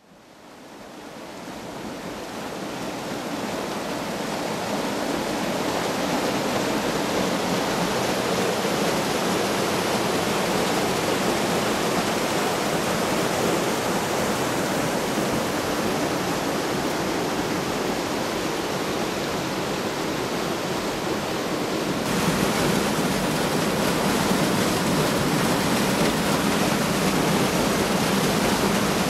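Waterfall on a small river, white water rushing through a narrow rock chute in a steady roar. It fades in over the first few seconds and turns a little louder and hissier about three quarters of the way through.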